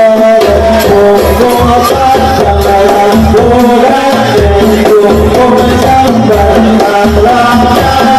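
Hadroh ensemble playing: hand-struck frame drums in a steady rhythm with deep low drum strokes, under men's voices singing a sholawat melody.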